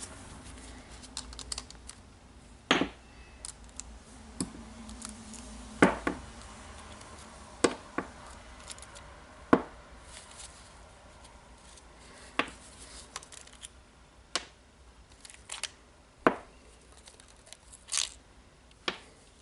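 Parts of a Makita DDF484 cordless drill being handled while it is taken apart: about a dozen sharp clicks and knocks of plastic and metal pieces, spread out with pauses between them, and a brief low hum about five seconds in.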